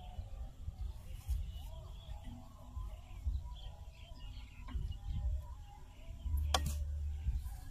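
Outdoor field ambience: gusty low rumble on the microphone with faint bird chirps, and one sharp knock about six and a half seconds in.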